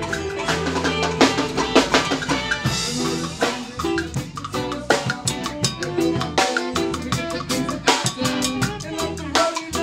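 A live rock band playing, with a busy drum kit and bass guitar.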